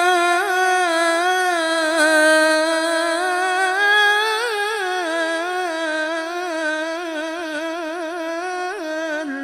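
A male qari's voice holding one long, ornamented note of Quran recitation (tilawah) through a microphone, drawing out the end of a verse with quick wavering trills and slides; the note breaks off near the end.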